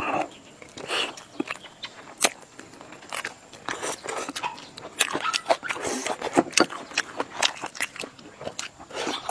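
A person eating close to the microphone: biting and chewing, with irregular sharp crunches and clicks.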